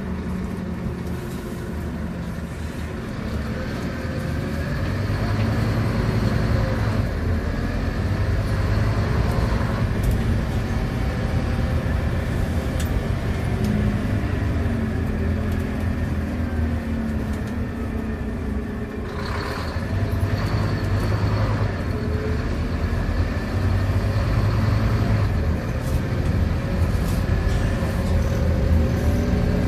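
Scania K230UB bus heard from on board, its diesel engine running under way over road and tyre noise, the engine note rising and falling as the ZF gearbox changes gear. It grows louder about five seconds in and again about twenty seconds in.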